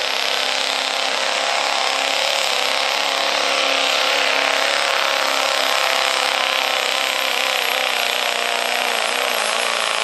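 Chevrolet Silverado diesel pickup at full throttle pulling a sled: the turbocharged diesel runs flat out under heavy load, a loud steady drone with a thin high turbo whistle over it.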